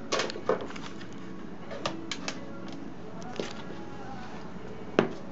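A few sharp clicks and knocks of objects being handled, the loudest two at the start and near the end, over faint background music.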